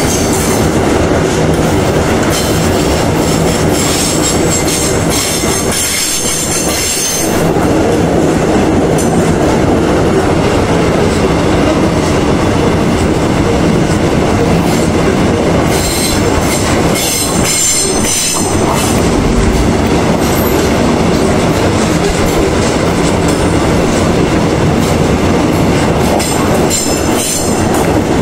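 Loaded iron-ore gondola wagons of a freight train rolling past at steady speed, with the loud continuous rumble and clatter of steel wheels on the rails. A high squeal comes and goes over the first several seconds, again around the middle and near the end.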